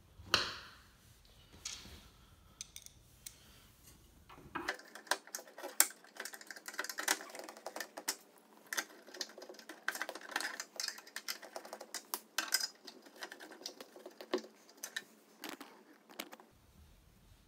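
A hand screwdriver turning screws into the bike's plastic cover: a knock just after the start, then from about five seconds in a dense run of irregular clicks and ticks, which stops about a second before the end.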